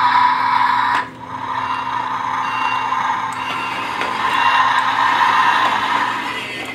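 Battery-operated toy garbage truck running its motorized trash lift and electronic truck sound effects: a steady whir that breaks off briefly about a second in, then carries on and dies away near the end.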